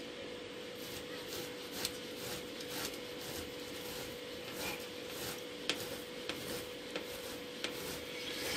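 Sausage being grated on a coarse hand grater: faint rasping strokes, pulled downward, with a few sharper clicks among them.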